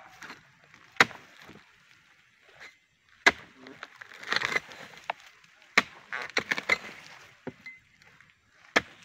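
Pole-mounted harvesting chisel (dodos) chopping into the fibrous base of an oil palm's fronds and fruit bunch stalks: four sharp strikes a couple of seconds apart, each followed by crackling and scraping of the splitting fibres.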